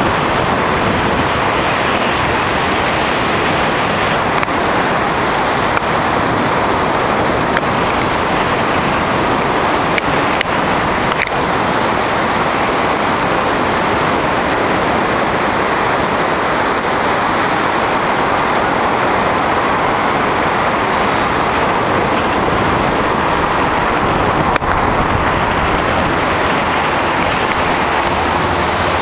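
Steady, loud rush of air across the camera microphone from the paraglider's flight through the air.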